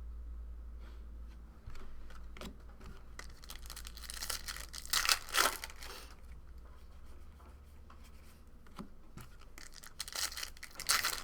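A foil trading-card pack being torn open and its wrapper crinkled, in bouts of tearing about four to six seconds in and again near the end, over a steady low hum.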